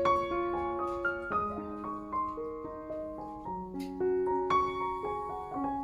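Background piano music: gentle held notes and chords changing about every half second.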